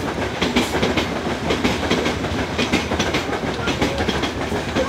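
Loaded coal freight train of open gondola wagons rolling past, its wheels clicking over the rail joints over a steady rumble.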